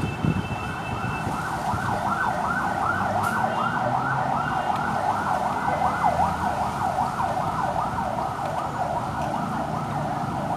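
A yelping siren, its pitch sweeping up and down about three times a second without a break.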